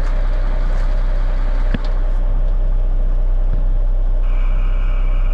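A 1974 Kenworth log truck's diesel engine running steadily. A single click comes in under two seconds in, and about four seconds in a steady high-pitched whine starts up over the engine.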